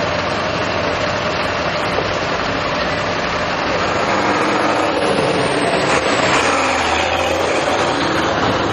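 Fire engine's motor running steadily, with a loud, even rushing noise over it.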